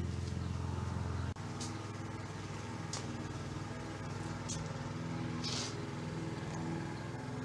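Steady low mechanical hum of a running motor, with a few short soft scrapes of handling over it.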